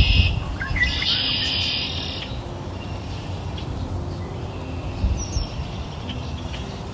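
Birds chirping, busiest in the first two seconds and fainter afterwards, over a low steady rumble.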